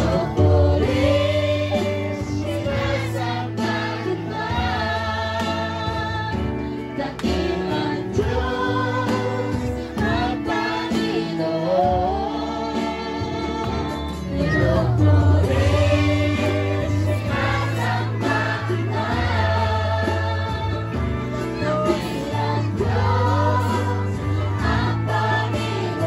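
Christian worship song: a group of voices singing along to a band, over a steady bass line.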